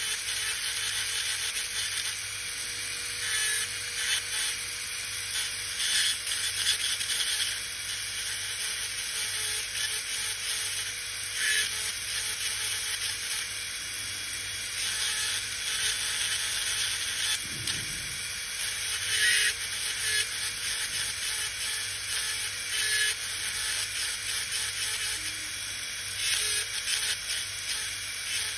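High-speed dental handpiece spinning a long thin fissure bur as it cuts through the contact and remaining enamel of a plastic typodont incisor. It is a steady hiss, now and then briefly louder as the bur bites.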